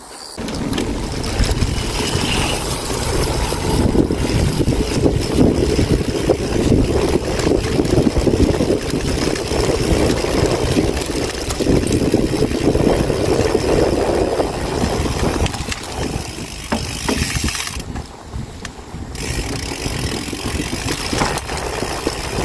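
Wind noise on the microphone of a moving bicycle: a steady rushing noise concentrated low down, easing briefly about three-quarters of the way through.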